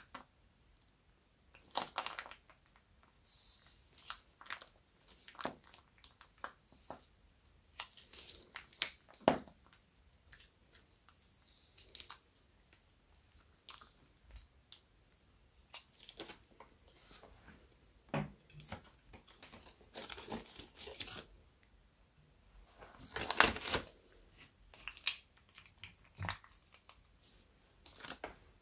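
Thin plastic piping bag crinkling and rustling in the hands as clear slime is squeezed out of it, in irregular bursts of small crackles and clicks.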